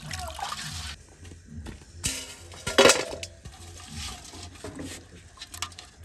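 Water sloshing and splashing as duck meat is washed by hand in a metal pot, with a louder clatter about three seconds in.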